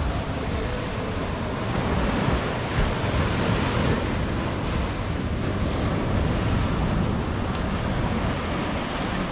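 Ocean surf washing in and breaking steadily, with wind on the microphone.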